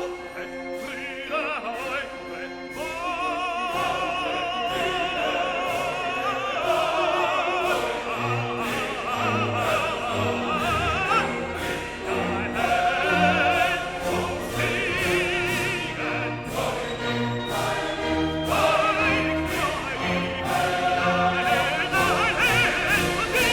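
Background classical music: operatic singing with wide vibrato over an orchestral accompaniment with a steady beat.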